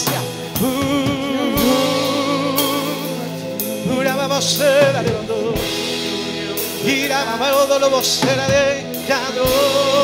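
Live worship music: a band with electric guitar, keyboard and drums plays a slow gospel song while voices sing long notes with vibrato over sustained keyboard chords, with cymbal and drum strikes throughout.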